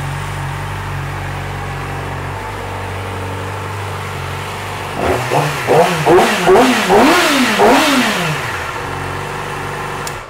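2009 Yamaha YZF-R6's 599 cc inline-four engine idling steadily, then revved in several quick throttle blips that rise and fall in pitch, settling back to idle before it is switched off at the very end.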